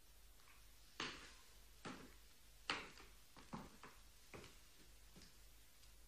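A string of short, faint knocks and clicks, irregularly spaced, about eight of them over four seconds, against near-silent room tone.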